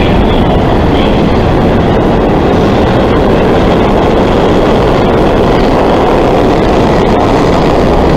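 Steady loud rumble of a New York City subway train running on the track at speed.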